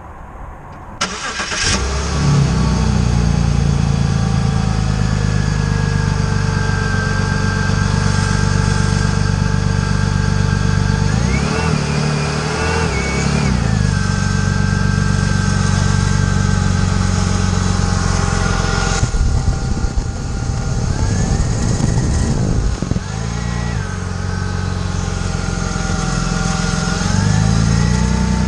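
BMW E46 325xi's straight-six engine starting about a second in and then running, its pitch rising and falling a few times as the revs climb, heard close up from beside a wheel. A single sharp knock sounds a little past the middle.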